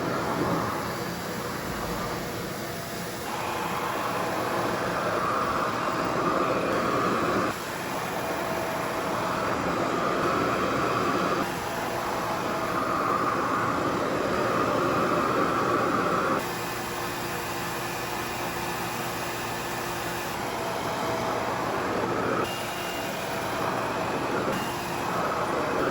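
Revair reverse-air hair dryer running steadily, its motor drawing air with a vacuum-like whir. The pitch and level shift abruptly several times.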